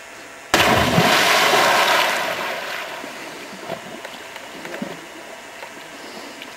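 A person plunging into a lake after a cliff jump: one loud splash about half a second in, with the water noise dying away over the next two seconds.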